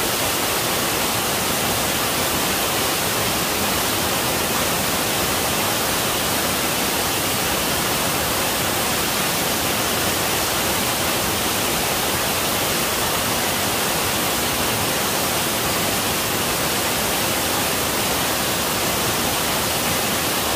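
Waterfall pouring down a rock face: a steady, unbroken rush of water.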